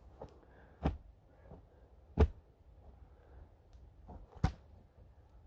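Three sharp thuds spread over a few seconds, the middle one the loudest: wooden poles being jabbed butt-first into the forest floor.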